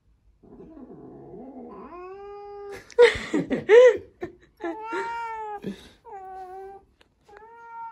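Domestic cat growling low, then yowling in a series of long, drawn-out cries, with a louder, harsher outburst about three seconds in: the threatening caterwaul of a cat warning off an unfamiliar cat.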